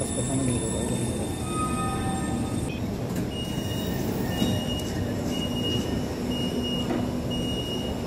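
Metro train braking to a stop with a high whine over the rumble, then, about three seconds in, a short high beep repeating roughly once a second as the train and platform screen doors open.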